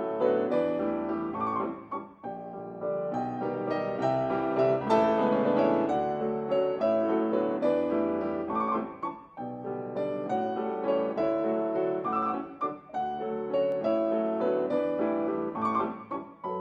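Piano music: a steady run of notes and chords, with brief pauses between phrases.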